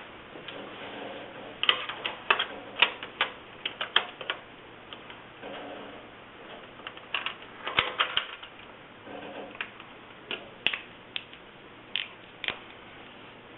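Irregular light clicks and taps of a metal kiln latch and clasp being handled and set against the kiln body, coming in small clusters with short pauses between.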